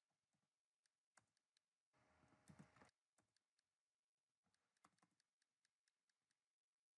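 Very faint computer keyboard keystrokes, scattered irregular clicks, with a brief rustling noise about a second long starting about two seconds in.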